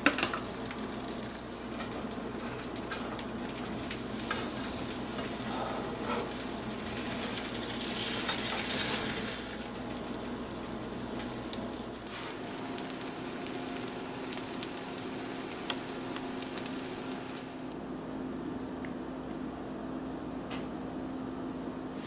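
An egg omelet frying in a nonstick pan, with a steady sizzle. A sharp knock right at the start comes as chopped peppers and greens are tipped onto the eggs.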